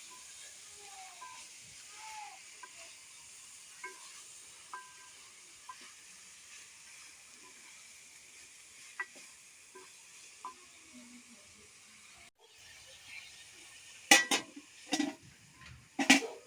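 Food frying in a pan: a steady sizzle with light scrapes and clinks of stirring. The sizzle breaks off suddenly about three-quarters of the way through, and a few loud knocks follow.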